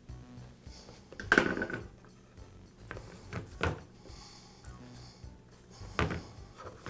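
Handling noise from a plastic fuel tank being worked on a steel table as its rubber fuel-line grommet is seated: a few knocks and scrapes, the loudest about a second and a half in.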